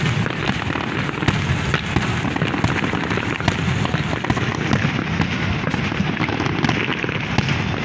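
Aerial fireworks display: a dense, unbroken barrage of crackling pops and sharp bangs from many shells bursting together.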